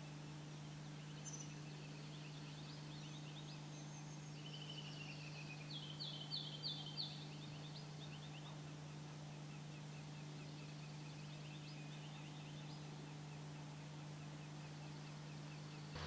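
Faint calls and song of small birds, scattered high chirps and trills, with a run of four sharp high notes about six seconds in, over a steady low hum.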